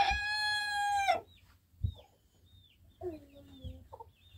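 A rooster crowing, its long held final note ending about a second in. Faint high chirps and a short lower call follow.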